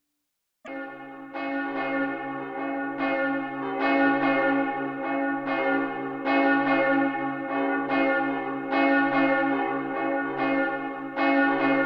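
Church bell ringing, struck again and again about once a second, each stroke ringing on into the next; it starts suddenly about a second in.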